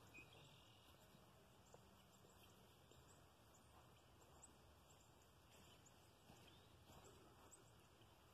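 Near silence: faint outdoor ambience with scattered faint, high chirps of birds.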